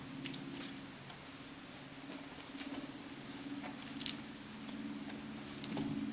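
Siamese kittens play-fighting on carpet: a few light taps, clicks and scuffles of paws, the sharpest about four seconds in, over a steady low hum.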